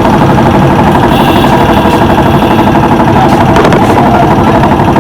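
An engine running steadily at idle, with an even rapid pulse.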